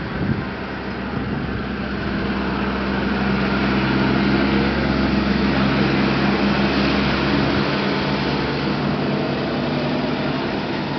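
Jet engine noise of CT-114 Tutor aircraft passing: a rush that swells to its loudest about four to six seconds in and then slowly fades, over a steady low hum.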